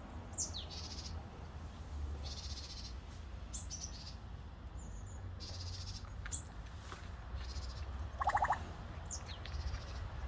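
Pet parrot calls, an eclectus and an African grey: several short, sharp whistles that fall in pitch, and a louder rapid rattling squawk about eight seconds in.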